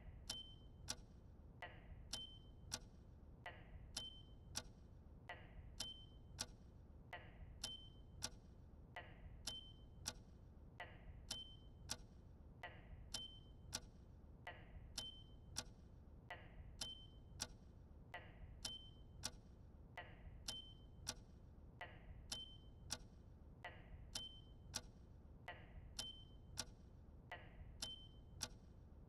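Squid Game countdown timer sound effect: clock ticking evenly, about two ticks a second, with a short high ping on every other tick.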